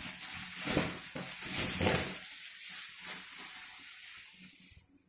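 Crinkling and rustling of plastic packaging with scattered soft knocks as a boxed vacuum cleaner is unpacked and handled. The sound is busiest in the first two seconds, thins out, and stops abruptly near the end.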